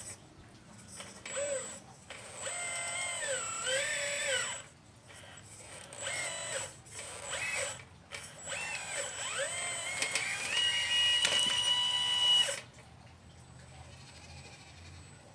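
Electric motor and hydraulic pump whine of a 1/12-scale radio-controlled Liebherr 954 excavator, rising and falling in pitch in short spurts as it is worked. It finishes with a longer, steady whine that cuts off suddenly near the end.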